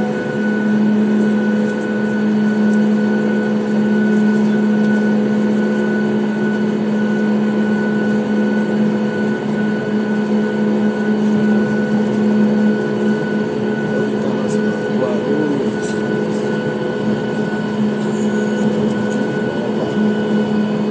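Inside the cabin of a Boeing 737 MAX 8 taxiing on the ground: a steady hum from its CFM LEAP-1B turbofan engines at taxi idle, with a low drone and higher whining tones that do not change pitch.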